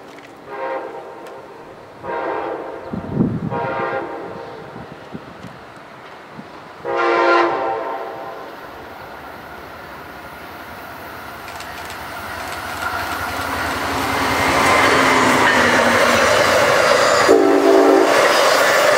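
An approaching Amtrak passenger train's horn sounds several blasts, the longest and loudest about seven seconds in. The rushing of the train on the rails then builds steadily from about twelve seconds in as it draws near and passes. One more short horn blast comes near the end.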